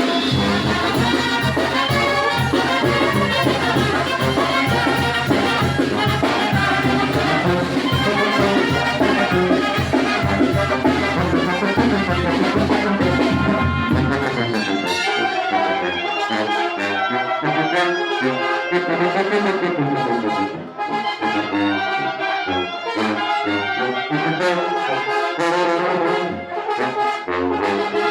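Brass band playing a chilena, with trumpets and trombones carrying the tune over a bass line. About halfway through, the low bass drops out and the higher brass goes on alone.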